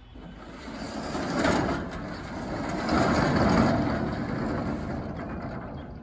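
Steel roll-up garage door being pulled down with a hook pole, its corrugated steel curtain running down the side tracks. The noise builds after the first half second, is loudest through the middle, and fades away near the end as the door closes.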